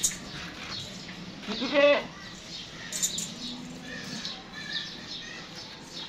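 A goat bleats once, a short wavering call about two seconds in, followed by quieter pen noise and a faint low call.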